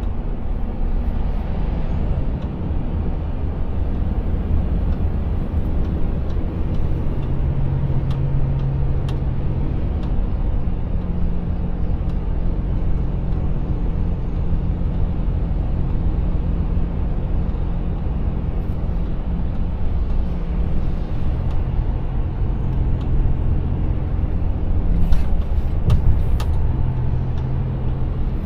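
Volvo FH Aero truck cruising, heard from inside the cab: a steady low engine drone with tyre noise on a wet road. A few short sharp knocks or clicks come near the end.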